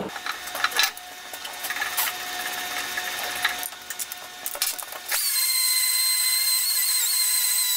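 Clinks and knocks of metal parts and hand tools being set down on a steel bench, then about five seconds in a die grinder starts and runs with a steady high whine. It is cleaning the preheated cast-iron steady rest down to bare metal before brazing.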